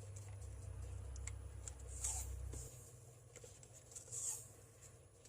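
Faint crackle and rustle of adhesive tape being pulled off and pressed down onto a small plastic speaker housing, with a few short hissy swishes and light ticks. A low hum stops a little under three seconds in.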